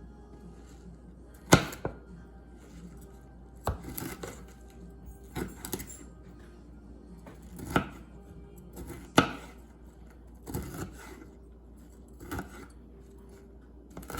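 Kitchen knife chopping fresh broccoli into small pieces on a cutting board: separate sharp chops at an uneven pace, about one every second or two.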